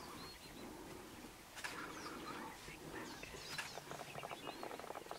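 Scattered short, high chirping calls that slide in pitch, with quick twittering runs about a third of the way in and again past the middle.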